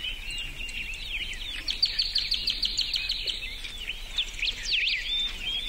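Songbirds chirping: many quick, sweeping whistled calls, with a fast run of evenly spaced notes about two seconds in.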